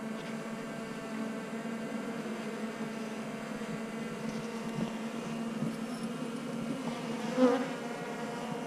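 Honeybees of a newly installed colony buzzing around the open hive: a steady, even hum on one pitch with its overtones.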